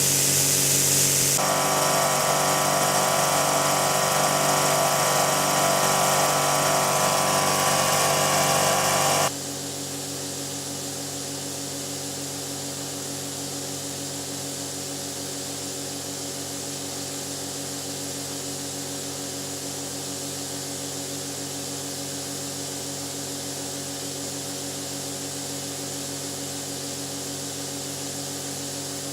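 Snowmaking nozzle hissing as compressed air and water spray out, running on too little air pressure from the compressor, with a steady hum underneath. The hiss changes tone a second or so in, and about nine seconds in it drops abruptly to a quieter steady hiss.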